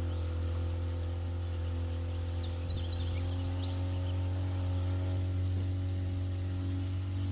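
Boat motor running at a steady low pitch as the boat cruises along, with a few short high bird chirps about three seconds in.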